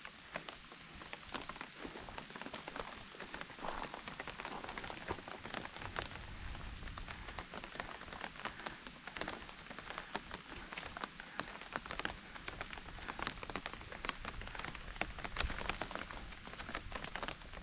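Steady rain falling, with many sharp, close raindrop taps throughout.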